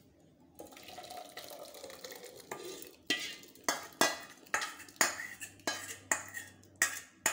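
Thick green field bean (mochai) curry pouring from a steel pot into a serving pan, then sharp metal scrapes and knocks about twice a second as a ladle scrapes out the last of it.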